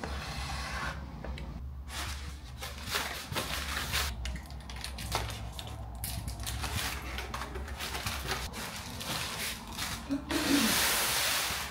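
Inflated foil letter balloons crinkling and rustling as they are handled and strung together, with scattered small clicks and a louder burst of rustling about ten seconds in.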